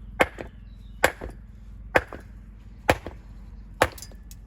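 Hammer striking stone: five sharp blows about a second apart, some followed by a smaller knock, as a building stone is dressed for a dry-laid or mortared wall.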